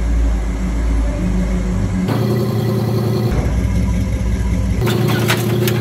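Chevrolet Impala's engine running through its newly installed muffler and exhaust, in short clips spliced together, so the exhaust note changes abruptly about two, three and five seconds in.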